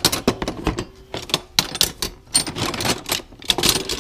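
Metal hand tools (pliers, wrenches, locking pliers) clinking and clattering against each other in a plastic tote as they are rummaged through by hand, an irregular run of sharp clanks.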